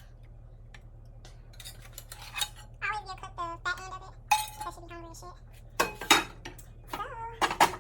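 Cutlery and dishes clinking and knocking in a run of sharp clicks, the loudest about six seconds in and near the end, with a few short vocal sounds in between.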